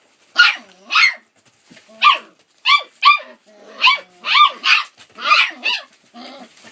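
Rough collie puppies, about five to six weeks old, barking in high-pitched yaps, about ten short barks in quick succession.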